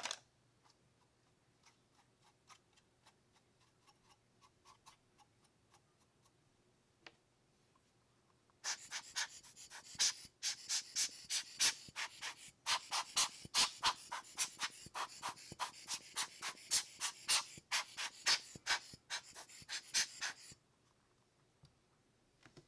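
Rubber hand air blower squeezed over and over in quick puffs of air, about four or five a second, for roughly twelve seconds, blowing dust off a plastic scale model car. Before the puffs, a single click and a few faint taps.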